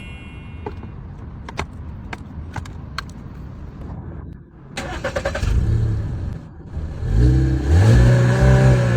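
Car engine running and revving, loudest in the last two seconds, after a low rumble with a few sharp clicks.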